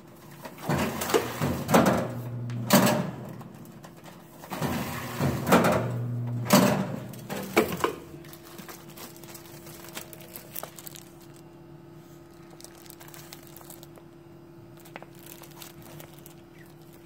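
Mailwrapper 280 magazine poly-bagging machine cycling. Several short, loud bursts of motor and film noise come over about the first eight seconds as poly film is wrapped around magazines. Then a quieter steady hum with faint clicks and plastic-film crinkling.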